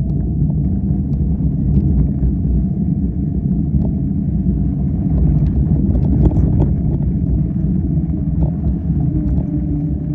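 Steady low rumble of riding along a deep-sand trail, with scattered small ticks and knocks from the tyres over sand and brush.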